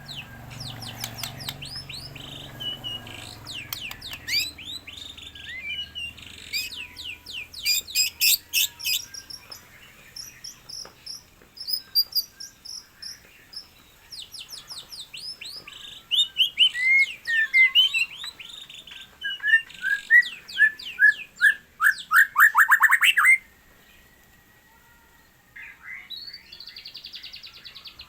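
A songbird singing a varied song of rapid, high chirps, whistled sweeps and trills. The song grows louder in the second half and breaks off suddenly after a fast trill, then resumes softly a couple of seconds later.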